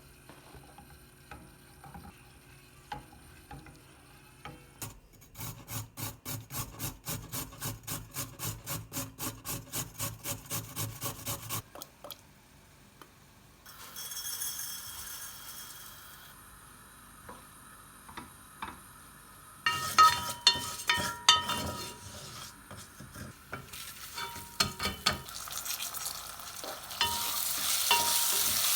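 Kitchen cooking sounds: a utensil stirring with quick strokes, about four a second, for several seconds, then a few sharp clatters of utensils and cookware. Near the end food starts sizzling in a frying pan.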